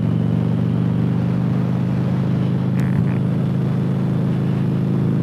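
Cruiser motorcycle engine running steadily while riding at an even speed, with no change in revs.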